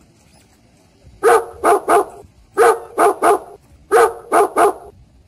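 Loud barks close by, nine in all, in three quick groups of three that begin about a second in and stop shortly before the end.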